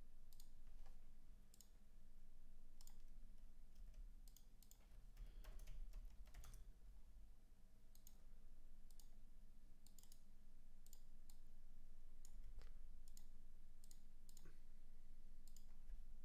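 Faint, irregularly spaced clicks, a dozen or so over the stretch, over a low steady hum.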